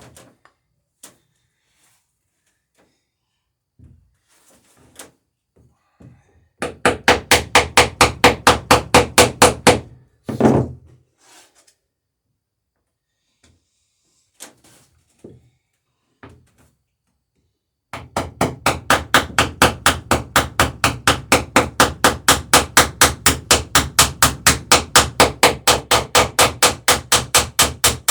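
Hammer rapidly peening over rivets in a wooden boat's planking, about five quick ringing blows a second, in two long runs, with a single heavier knock between them.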